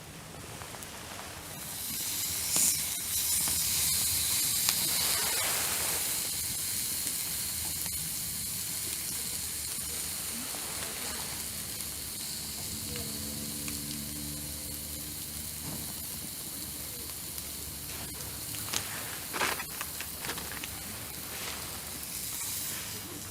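Food sizzling on a hot barbecue grill: a high hiss that starts suddenly about a second and a half in, loudest at first, then slowly dies down. A few sharp clicks come near the end.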